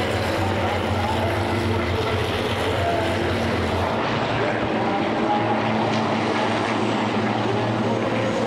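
Racing trucks' big turbodiesel engines running hard as they pass, a loud steady drone whose pitch wavers up and down.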